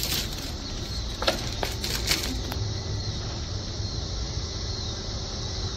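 Steady outdoor background noise: a low rumble with a faint hiss, broken by a few faint short clicks about a second and two seconds in.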